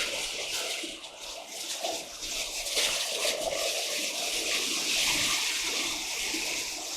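Heavy rain and wet-road spray heard from inside a moving campervan's cab: a steady hiss of water on the vehicle.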